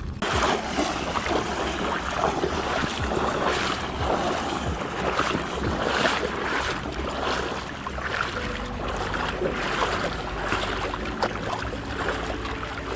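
Wind buffeting the microphone over the wash of water, in uneven gusts.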